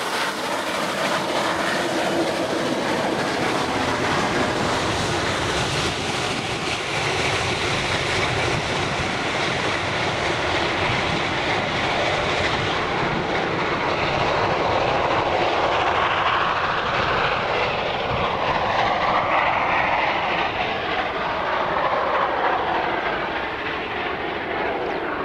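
Steam-hauled vintage train running along the track: a steady rushing rumble, with a higher wavering tone that rises and falls in the second half.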